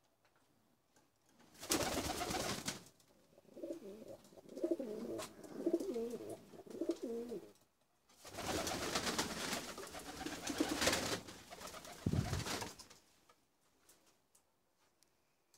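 Domestic pigeons cooing in a loft, low wavering coos running through the middle. Two louder stretches of rustling noise break in, one early and a longer one later.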